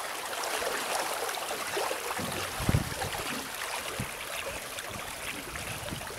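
Water rushing and splashing along the hull of a hoogaars sailing boat under way, with a couple of brief low thumps around the middle.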